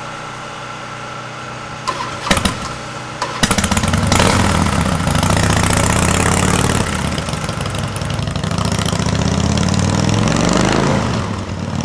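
Motorcycle engine catching about a third of the way in, then running loudly with revs, its pitch rising near the end.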